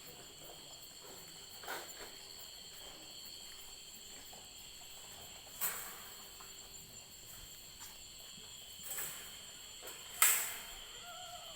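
Crickets chirring steadily in the night, several high thin tones held without a break. A few short sharp knocks or rustles cut across it, the loudest about ten seconds in.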